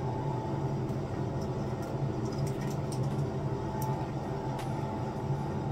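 A steady low hum throughout, with scattered light clicks and rustles from plastic claw clips and hands working through hair as it is sectioned.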